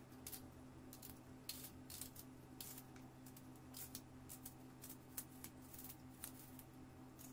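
Faint, irregular crisp snicks of a small knife cutting through fresh apple, over a steady low hum.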